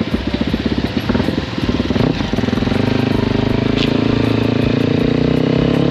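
Motorcycle engine running under way, heard from on the bike. It putters unevenly at low revs for about the first two seconds, then settles into a steadier, smoother hum for the rest.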